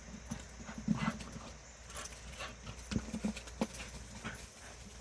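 A puppy's small growls and grunts in play, several short ones, with scattered light taps.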